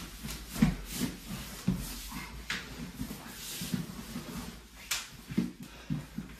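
Two wrestlers scuffling on a plastic-covered mat: repeated dull thuds of knees and bodies landing on the mat, with scraping and sliding of limbs over the plastic cover.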